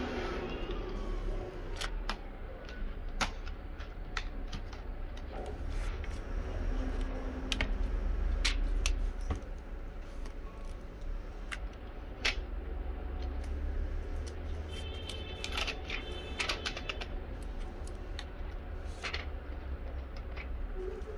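Irregular plastic clicks and snaps as a laptop's keyboard and case are pried and handled with a metal pry tool, over a steady low hum.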